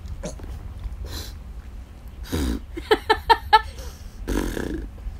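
Wordless vocal noises from a person playing with a kitten: a low grunt, then a quick run of four short squeaks, then another low grunt near the end.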